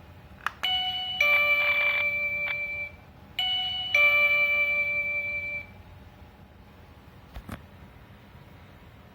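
Wireless doorbell chime ringing a two-note ding-dong, higher note then lower, twice in a row about three seconds apart, each chime fading out.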